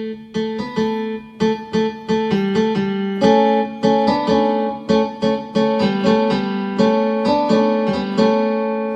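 Background music: a piano or electric-piano melody over repeated chords, with clear struck notes about twice a second.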